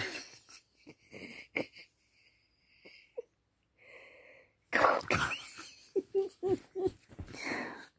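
A dog breathing out in several short, noisy puffs while being petted. From about five seconds in come louder bursts of noise and a few short pitched sounds as he moves about on the bedding.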